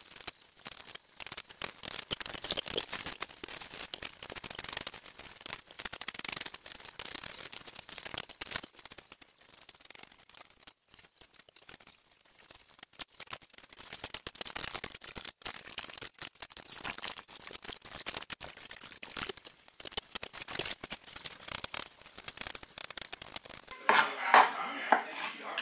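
Chef's knife chopping onion, green bell pepper and garlic on a wooden cutting board: quick runs of knocks of the blade on the wood, with short pauses.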